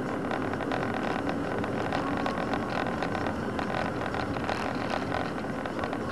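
Steady engine and road noise of a moving car heard from inside the cabin through a dashcam microphone, an even hum with faint small ticks.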